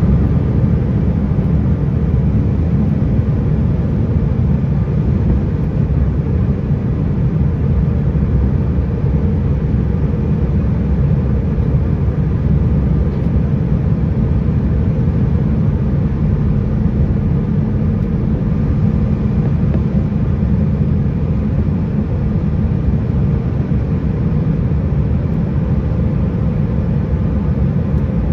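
Steady low rumble of an airliner's engines and airflow heard from inside the cabin during the landing approach, with a few faint steady tones above it.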